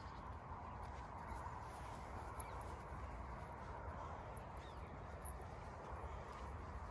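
Steady outdoor background noise with a low rumble, and a few faint, brief high bird chirps scattered through it.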